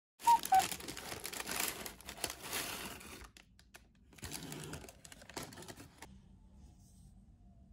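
Two short clinks, then crinkly wrapping rustling and crumpling for about three seconds, with a second, shorter spell of rustling starting about four seconds in.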